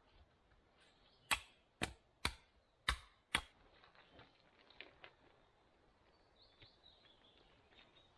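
An axe chopping at a wooden stick: five sharp knocks about half a second apart, then a few fainter taps.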